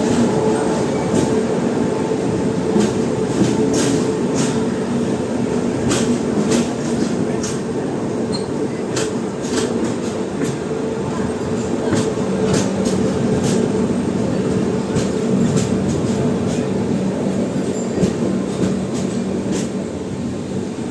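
Indian Railways express train running along the line, a steady rumble and hum with irregular sharp clicks and knocks from the wheels and coach.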